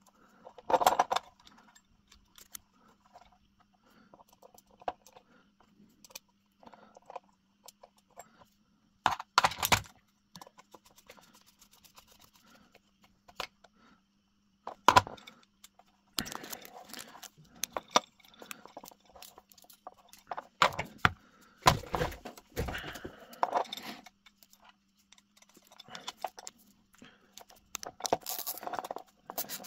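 Hands working small electrical parts while wiring a three-pin mains plug: scattered clicks and small metal parts clinking, with the braided fabric flex rustling, in irregular bursts over a faint steady hum.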